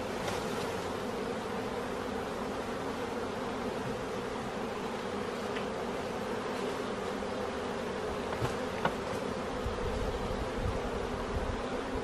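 A colony of honey bees buzzing steadily all at once, a dense even hum from the mass of bees on comb that is being cut out of their nest. A couple of faint taps come about two-thirds of the way through.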